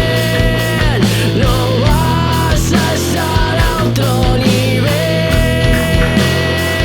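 Rock band with two electric guitars, bass and drums playing a heavy, distorted passage. A high lead note is held for several seconds and bends downward, once about a second in and again near the end.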